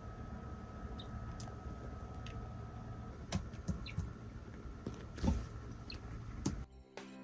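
A common marmoset hiccuping: tiny, high, squeaky hics, like a very small bird call, at irregular intervals, about ten in all, with one louder knock about five seconds in. Hiccups are spasms of the diaphragm.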